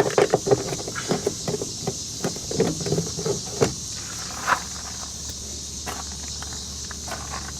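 Light clicks and knocks of a nut driver working screws out of a truck's door panel. They come quick and irregular for the first few seconds, then thin out, with one sharper click about four and a half seconds in.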